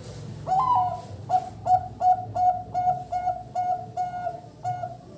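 Zebra dove (perkutut) cooing. A rising opening coo comes about half a second in, then a run of short, even coos at one pitch, about three a second.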